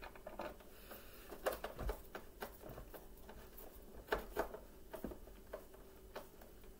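Hand screwdriver turning screws into the plastic base of a Bissell Powerforce Bagless vacuum to fix the brush roll cover: irregular small clicks and scrapes, with a few sharper clicks.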